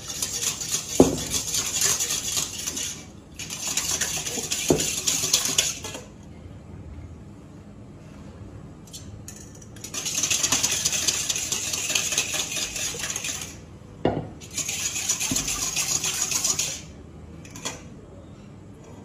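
Wire balloon whisk beating oil into a dark liquid sauce in a stainless steel mixing bowl: fast metallic rattling of the wires against the bowl in four spells of a few seconds each, with a quieter pause of about four seconds in the middle and a few single knocks of the whisk on the bowl.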